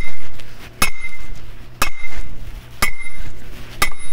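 Sledgehammer blows on a welded steel post, driving it into the ground at a steady pace of about one strike a second. Each blow is a sharp clang with a brief high metallic ring.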